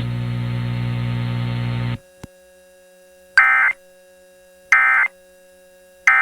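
A steady electrical buzz that stops after about two seconds, followed by a click. Then come three short bursts of Emergency Alert System end-of-message data tones, each about a third of a second long and a little over a second apart, which mark the end of the alert broadcast.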